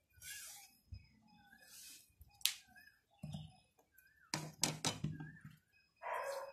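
Kitchen knife cutting a vegetable on a wooden chopping board: sharp knocks of the blade on the wood, one about halfway through and a quick cluster a little later, with brief scraping between.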